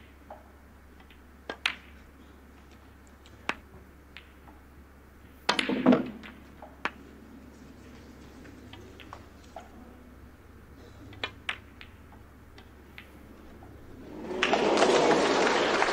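Snooker balls clicking now and then as they are struck and collide on the table, with a short loud burst of sound about six seconds in. Audience applause starts near the end.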